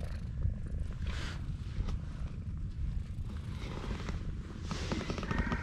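A tabby-and-white stray cat purring very loudly and steadily close up while being stroked, with brief rustling about a second in and again near the end.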